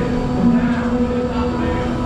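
Haunted-house maze soundtrack: a deep rumble under long held notes that shift to new pitches.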